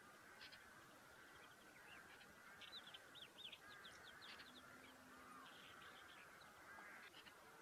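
Faint wild birds calling: many overlapping short calls and chirps, busiest around three to four seconds in. A brief faint low hum comes in about five seconds in.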